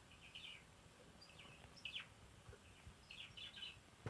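Pet budgerigars chirping faintly in three short spells of high twittering.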